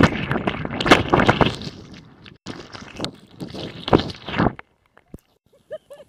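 Churning ocean water and bubbles heard underwater as a breaking wave tumbles the camera, loud and rough for the first couple of seconds, surging again around three to four and a half seconds in, then dropping away.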